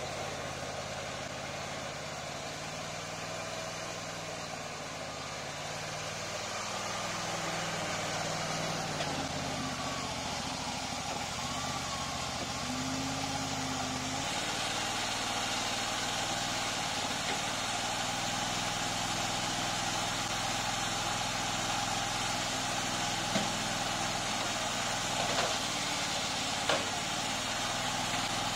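Mini loader's engine running steadily as the machine carries a bucket loaded with dense soil and lifts it on its hydraulics, the engine note changing about halfway through. A few short knocks near the end.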